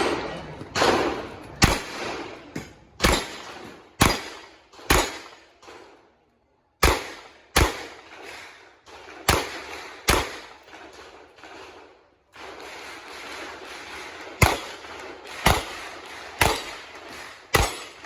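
Revolver shots fired one at a time, about a second apart, each a sharp crack with a short echo, with a break about a third of the way through. A steady hiss sits behind the later shots.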